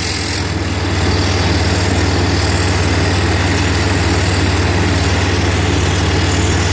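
Soosan hydraulic drill rig running steadily with a low, even engine drone. It gets slightly louder about a second in.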